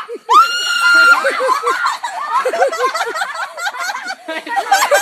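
A girl's long, high-pitched scream, then a run of short, rapid shrieks and laughter.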